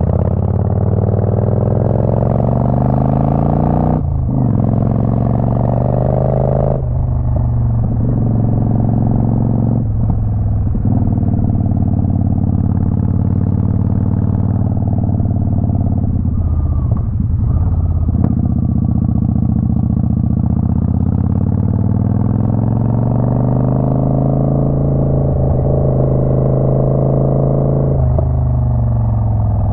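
Twin-cylinder motorcycle engine running under way, its pitch climbing with the revs and breaking off at several gear changes, with wind and road noise underneath.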